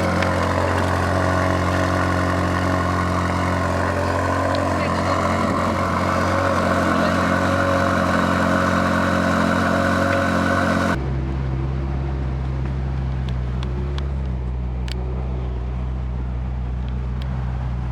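2012 Ferrari California's 4.3-litre V8 running at a steady, unchanging pitch. About eleven seconds in the sound switches abruptly to a lower, duller steady engine note, which eases off near the end.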